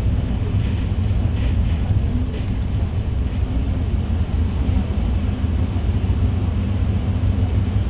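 City bus engine running with a steady low rumble, heard from inside the passenger cabin.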